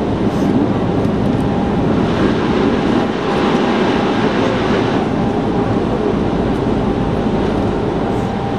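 Running noise of an Osaka Municipal Subway 66 series train heard from inside the car: a steady rumble of wheels on rail with a faint steady whine. A louder rushing hiss rises between about two and five seconds in.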